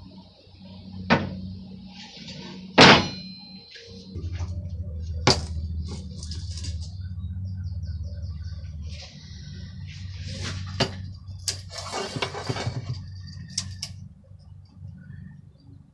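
Irregular clanks and knocks of iron tools and stock in a blacksmith's shop, the loudest a ringing metal clang about three seconds in, with a cluster of clatter near the end, over a steady low hum.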